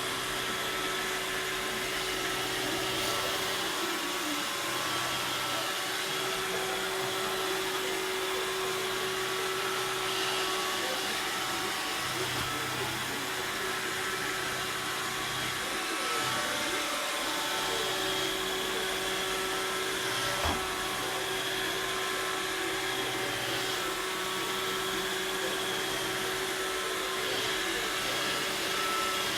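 Robot vacuum cleaner running steadily, a motor hum and whir, with one short knock partway through.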